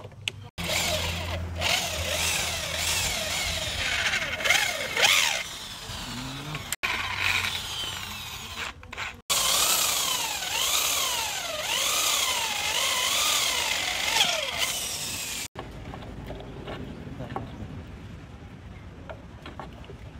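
Makita electric drill boring into hardwood in several runs, the motor pitch sweeping up and down as the bit bites and eases. The drilling stops about three-quarters of the way through, leaving a quieter steady background.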